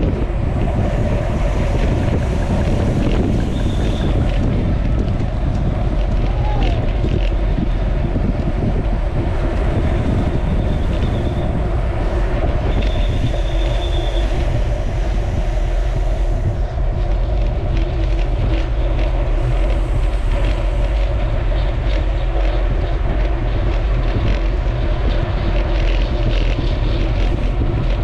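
Steady, loud wind buffeting on the microphone, a continuous low rumble with a rushing noise over it. A few short, high whistling tones come through between about 3 and 14 seconds in.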